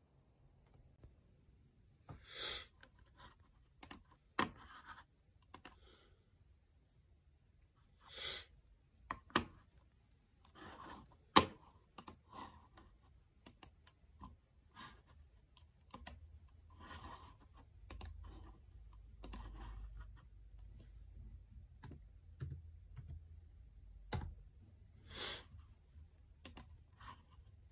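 Irregular clicks of a computer mouse and keyboard, a few sharper than the rest, with a few short rustling noises in between.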